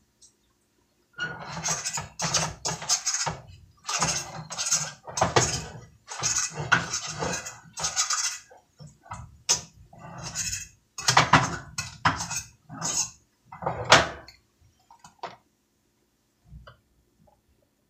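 A utensil scraping and knocking against a frying pan as cooked scrambled eggs are scooped out, in a run of short scrapes that stops a couple of seconds before the end.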